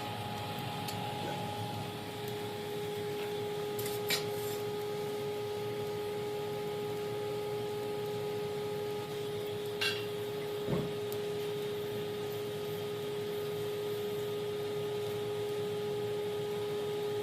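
A smithing forge running with a steady, even hum while a steel striker heats inside it, with a few light clicks and knocks of metal.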